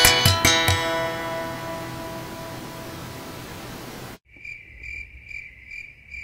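Unplugged Chapman Alto Stick, its strings tapped on the fretboard: a few last notes, then the final chord rings and fades over about three seconds. After a sudden cut, a high chirp repeats steadily about three times a second, like a cricket.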